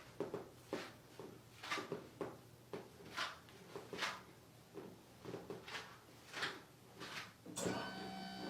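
Hands rubbing and sweeping over the body during a massage, short friction strokes at roughly two a second. Near the end a steady electric hum with a few fixed tones starts.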